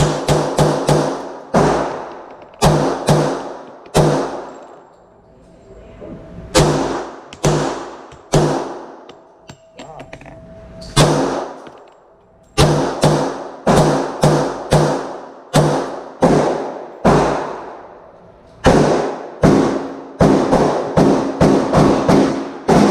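Semi-automatic gunfire at a shooting range: strings of rapid shots, several a second, each one echoing briefly, with short pauses between the strings.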